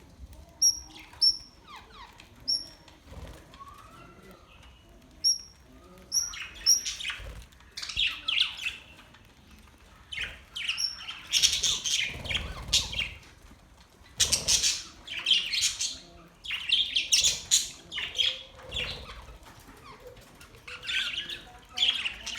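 Budgerigars chirping and chattering. Short, sharp, high chirps repeat through the first several seconds, then give way to busy bouts of warbling chatter a second or two long.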